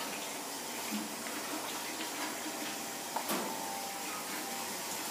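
Water running steadily through the hoses of a large planted aquarium, with one sharp click a little after three seconds in.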